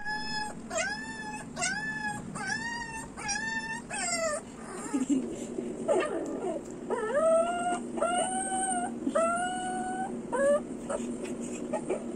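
Dog whimpering in a run of short, high-pitched cries of about half a second each, with a break near the middle before the cries resume.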